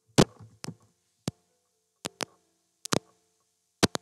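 Computer keyboard keystrokes as a value is typed in: about nine sharp, separate clicks, some in close pairs.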